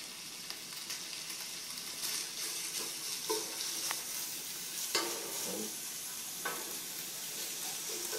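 Thin slices of raw pork sizzling as they are pushed with chopsticks onto a hot electric griddle: a steady frying hiss with a few sharp clicks of the chopsticks against the plate and pan.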